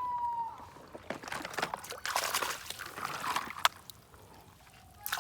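Water sloshing and trickling over a muddy plastic toy truck as it is washed, with scattered clicks of the toy being handled. A brief, slightly falling tone sounds at the very start.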